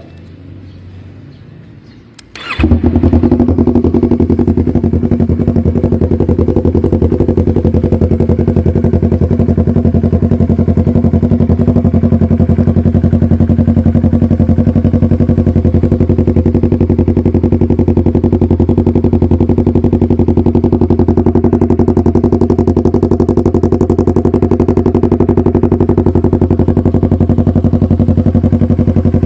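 Yamaha MT-03 motorcycle engine with an SC Project full exhaust system, started about two and a half seconds in, then idling steadily and loudly through the aftermarket exhaust.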